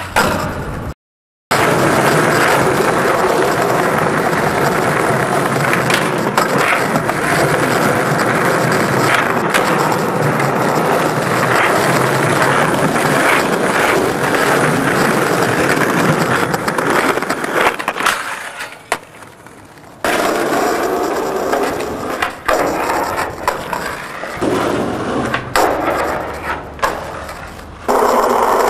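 Skateboard rolling on concrete, the wheels giving a loud steady rumble broken by sharp clacks and knocks of the board popping and landing. The sound cuts out briefly about a second in and drops quieter for a couple of seconds about two-thirds of the way through.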